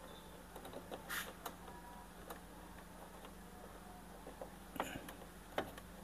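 Faint, scattered small clicks and light rustling from hands working the plastic lid-lock housing, wiring and connector of an LG Inverter washing machine.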